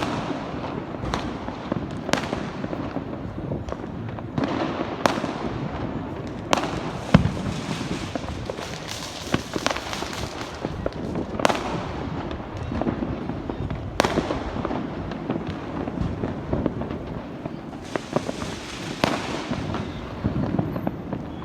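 Many fireworks and firecrackers going off together: a constant crackle with separate sharp bangs every second or few seconds, some echoing.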